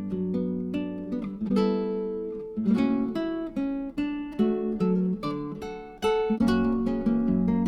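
Background music: acoustic guitar plucked and strummed, with a run of separate ringing notes.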